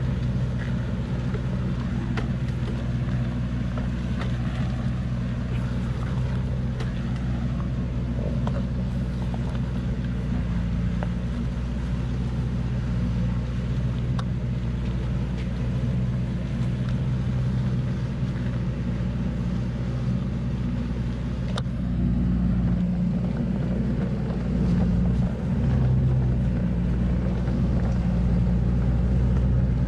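Heavily loaded log truck's engine running steadily under load as it crawls along a rutted mud track, growing a little louder about two-thirds of the way through.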